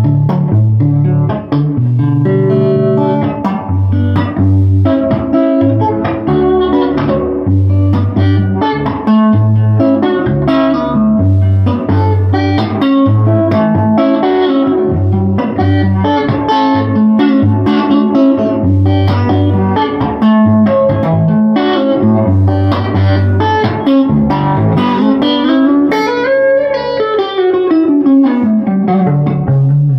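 Electric guitar played through a Filmosound projector amplifier converted to an EL84 valve amp, driving a cheap 10-inch Jensen ceramic speaker: a chimey tone with a little breakup and edge. A repeating bass note runs under picked higher notes, and near the end a long glide rises in pitch and falls back down.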